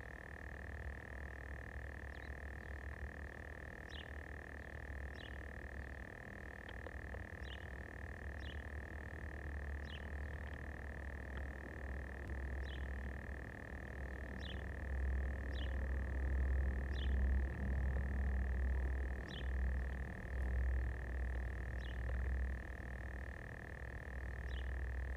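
Outdoor animal chorus: a steady high-pitched drone with short falling chirps about once a second. A low rumble underneath gets louder about halfway through.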